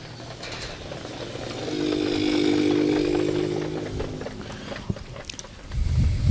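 Pickup truck engine running under load while it carries the mobile starting gate down the track, loudest a couple of seconds in and then fading; a brief low rumble near the end.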